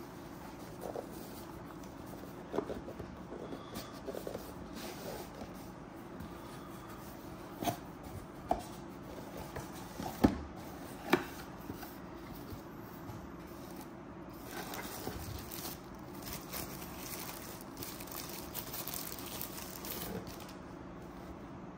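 Cardboard dash cam box being handled and opened, with a few sharp knocks and taps as the boxes are set down and slid apart. Later comes a stretch of crinkling as a thin plastic bag is pulled off the camera.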